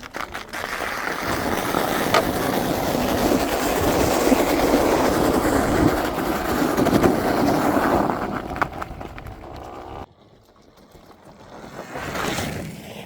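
Steady rolling and rattling noise of an e-bike riding over a rough, icy road. It cuts off sharply about ten seconds in and returns more quietly near the end.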